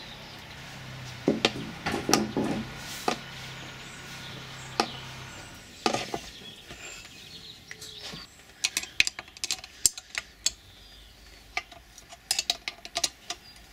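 Light metallic clinks and taps as a carburettor is offered up to a sheet-metal air-filter housing and its nuts are tightened with a spanner. The clicks are scattered at first and come thicker in the second half.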